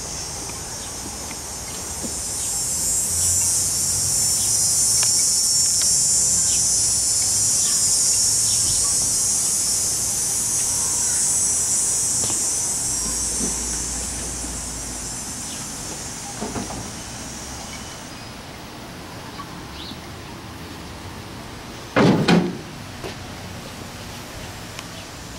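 A cicada's high, buzzing drone swells up over a couple of seconds, holds loud for about ten seconds, then fades away. A single short knock comes a few seconds before the end.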